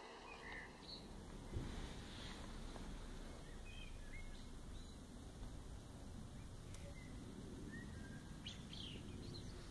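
Scattered faint bird chirps over a low outdoor rumble, with a single short thump about one and a half seconds in.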